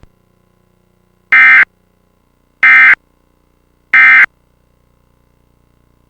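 Emergency Alert System end-of-message (EOM) signal: three short, loud bursts of digital data tones about a second and a third apart. They mark the end of the alert message.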